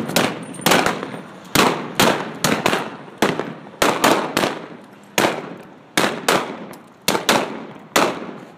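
Rapid, uneven volley of revolver shots firing blanks in a staged gunfight, about eighteen cracks over eight seconds, some in quick pairs, each ringing off with a short echo.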